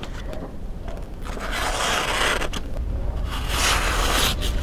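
The blade of a Ruike M671 folding knife slicing through a sheet of paper in two long cuts, each a dry swish of about a second. The clean, easy slicing shows a very sharp edge.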